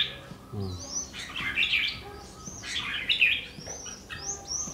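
Caged red-whiskered bulbuls singing: several short, bright whistled phrases with quick slides up and down, coming in bursts with short gaps between.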